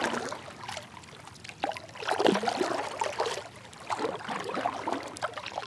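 Kayak paddle strokes: the blade dipping into the river with a few irregular splashes, and water dripping off it between strokes.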